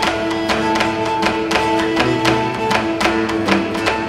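Live instrumental music of plucked guitar-type strings with held notes, driven by a quick, even pulse of percussive strokes at about four a second.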